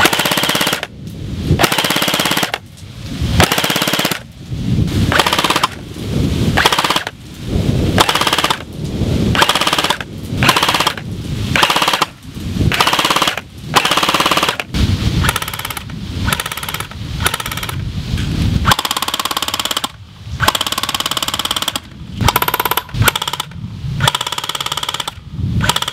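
Airsoft rifle fitted with a MadBull Noveske KX3 flash hider/amplifier firing bursts of rapid fire on full auto, one after another with short pauses. Each burst lasts about half a second to a second and a half, with one longer burst about two-thirds of the way through.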